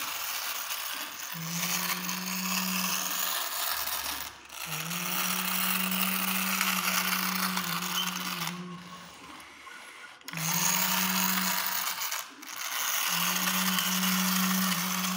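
Plastic toy excavator's gears whirring and ratcheting as it is run along a tiled floor by hand, in about four spells of a few seconds with short pauses between.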